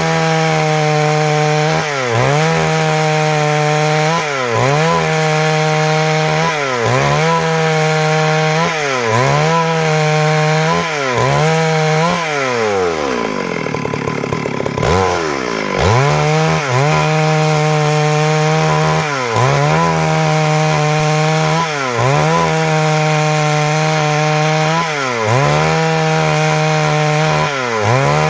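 Stihl MS 382 two-stroke chainsaw cutting wood at high revs, its engine pitch dipping and recovering every second or two as the chain loads in the cut. About halfway through the revs fall away steeply and then climb back to full speed.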